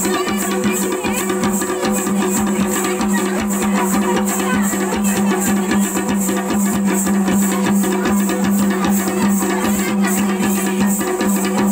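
Koraputia folk dance music: a quick, steady drum beat over a held low drone note.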